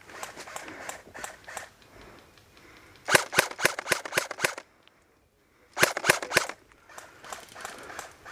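Airsoft guns firing. There are two loud, rapid strings of shots close by, about three seconds in and again about six seconds in, with fainter scattered shots before and after.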